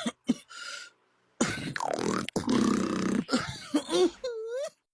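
A man's cough mixed with beatbox-style vocal noises (a 'bebop' cough): a few short coughs, then a long rough stretch of coughing and vocal sounds with sliding pitch, ending in a wavering sung note.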